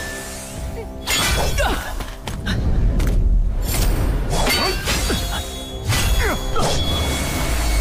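Stylised fight sound effects: several heavy impacts with whooshing sweeps and a shattering crash, over a low rumble and dramatic background music.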